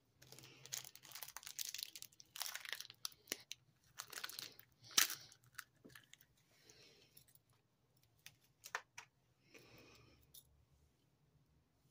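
Clear plastic packaging wrap crinkling and rustling as it is handled. It is busiest for the first five seconds or so, then thins out to scattered clicks and a short rustle near the end.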